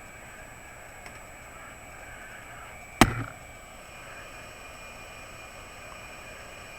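Hot air rework station blowing at its lowest airflow, a steady hiss with a thin high tone, while the solder paste on the chip's pins is reflowed. About three seconds in, one sharp click or knock.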